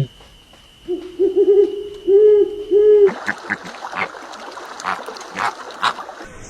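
A bird's low hooting calls, several short wavering notes repeated over about two seconds. Then the sound changes abruptly to a noisy stretch with scattered sharp clicks and taps.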